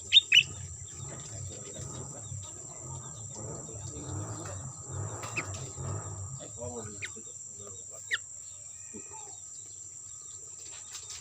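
Short, sharp bird chirps: two loud ones right at the start and a few fainter ones later, over a steady high-pitched drone of crickets and insects.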